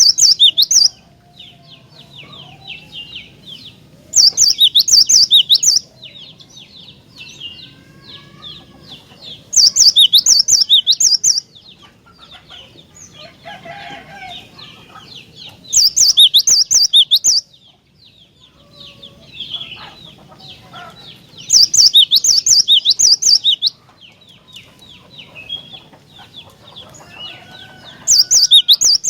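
Cinereous tit (glatik batu) singing: loud bursts of rapid, high notes about a second and a half long, repeated roughly every six seconds, with softer chattering calls in between.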